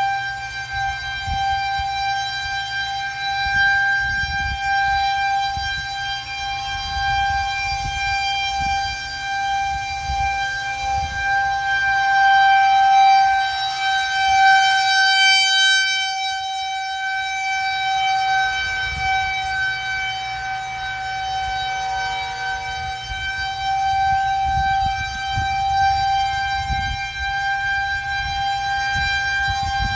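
Federal Signal 2001-130 rotating electromechanical outdoor warning siren sounding a steady tone for a tornado warning, swelling and fading as it turns, loudest about halfway through.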